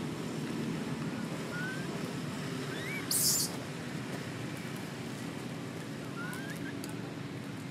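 Outdoor ambience: a steady low rumble with faint short rising chirps every second or so, and a brief sharp hiss about three seconds in.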